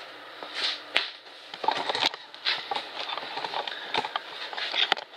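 Objects being handled: a run of sharp clicks and knocks with rustling between them, getting busier about a second and a half in.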